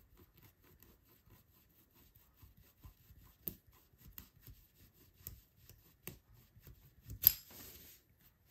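Faint scratching and ticking of a toothpick drawn up and down through enamel on a glass piece to texture it, with one sharper click about seven seconds in.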